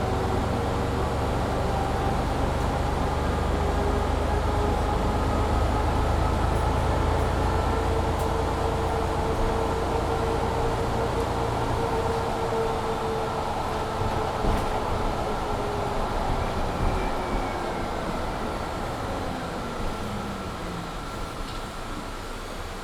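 Inside a Mercedes-Benz Citaro C2 G articulated bus with a Voith automatic gearbox pulling hard: the drivetrain whine rises in pitch, then falls away as the sound eases down in the second half. A loud heater fan hums steadily underneath throughout.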